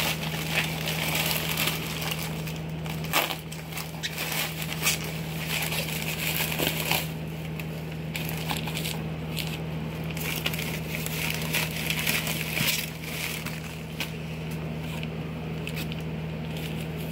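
Plastic poly shipping mailer crinkling and rustling in irregular bursts as it is handled and opened, over a steady low hum.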